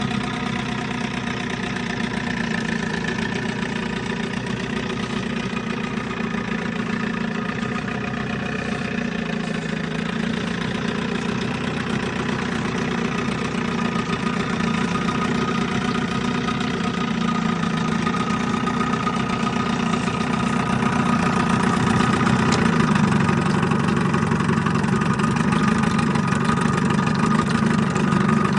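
1980 Johnson 7.5 hp two-stroke outboard motor running steadily at low speed. It gets a little louder about halfway through and again later on.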